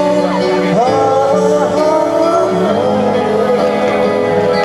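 Pop music playing loudly and steadily, with a melody line that glides between held notes over a steady accompaniment.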